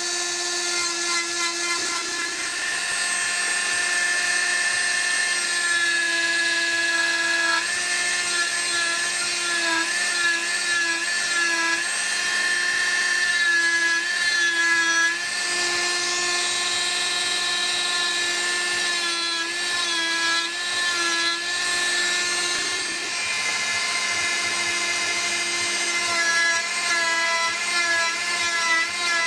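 Flexible-shaft rotary tool running at high speed with a steady whine as a small burr grinds detail into a wooden carving. The whine wavers and breaks up in stretches as the bit bites into the wood, and dips briefly twice.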